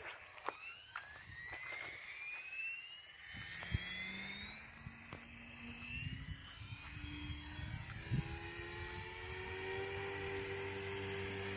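Logo 690 electric RC helicopter spooling up on its repaired VTX 697 main blades: the motor's whine rises steadily in pitch for about ten seconds and then levels off. A lower rotor hum joins about three seconds in and climbs with it. A few light clicks come in the first two seconds.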